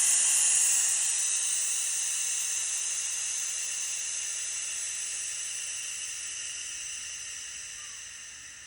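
Compressed air hissing out as the air hose from a McGraw 29-gallon compressor is bled of pressure through the lowered regulator. The hiss fades steadily as the line empties, dying away near the end.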